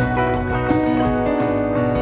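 Instrumental background music with sustained notes over a steady beat of about three strokes a second.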